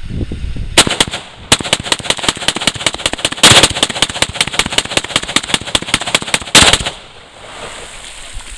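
AK-pattern rifle fired rapidly: a single shot about a second in, then a fast, steady string of several dozen shots lasting about five seconds that stops abruptly.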